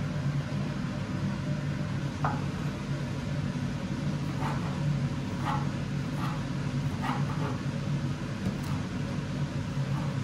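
Kitchen knife slicing pickled gherkins lengthwise on a bamboo cutting board: soft cuts, about one a second, from about two seconds in. A steady low hum, louder than the cuts, runs under them.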